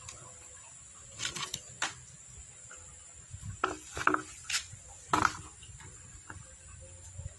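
Mangosteens tumbling out of a plastic soft-drink-bottle fruit picker and dropping into a plastic basket: clusters of knocks and thuds about a second in, around four seconds in and just after five seconds in, the later ones loudest. A steady high insect chirring goes on behind.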